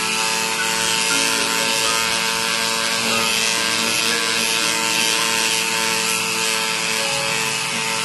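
Metal hand file scraping back and forth along a thin silver rod, a steady rasping hiss.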